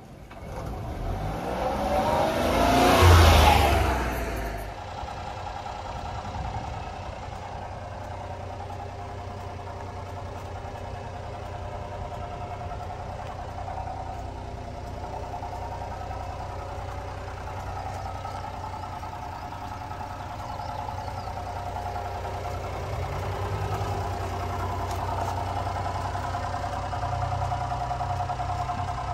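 A loud rushing sound swells and fades over the first few seconds. After it, a 1997 Honda Acty truck's small three-cylinder engine idles steadily.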